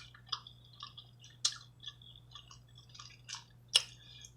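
Close-up mouth sounds of a person chewing seafood in a saucy boil: soft wet crackles and smacks, with a few sharper clicks.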